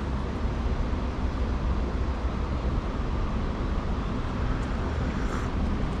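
Steady outdoor background noise: a low rumble with an even hiss above it, with no clear events.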